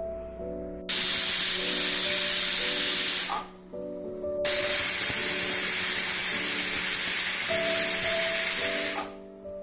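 Prestige pressure cooker whistling: steam blasts out of the weighted vent twice, a short whistle of about two seconds and then a longer one of about four and a half seconds. Each whistle means the cooker has come up to pressure, and the whistles are counted to time the cooking.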